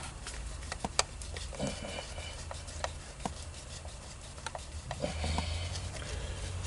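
Scattered light clicks and taps of hand tools on a distributor cap's hold-down screws, over a steady low hum.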